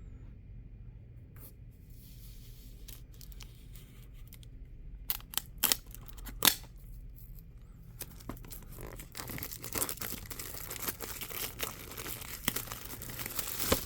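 Plastic wrapping on a product box being cut with a knife and torn off. A few sharp clicks come near the middle, then continuous crinkling and tearing of the plastic through the last third.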